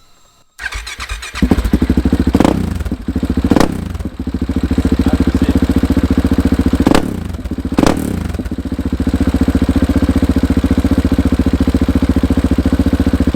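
Husqvarna 701's single-cylinder engine, breathing through a new Akrapovič titanium exhaust, starting up about half a second in. It is then blipped four times in short revs and settles back each time to a steady, pulsing idle.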